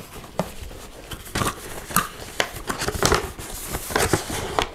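Cardboard box being opened with scissors: irregular sharp clicks, scrapes and rustles of scissors and cardboard, then the flaps pulled open and a paper bag rustling.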